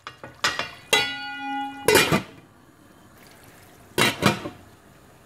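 Stainless steel lid clanking against the rim of a steel pan as it is set on. The knock about a second in rings on briefly with a metallic tone, and two more clanks come about four seconds in.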